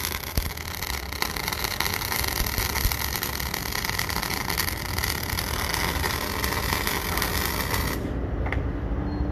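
MIG welding arc running on a steel shaft joint, a steady dense crackle and hiss, that cuts off suddenly about eight seconds in when the arc stops. A low machine hum carries on underneath.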